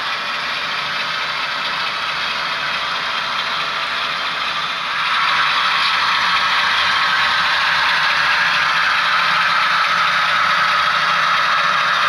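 HO scale model freight train running on the layout, its locomotives' motors and gears and the cars' wheels on the track making a steady mechanical noise that gets louder about five seconds in.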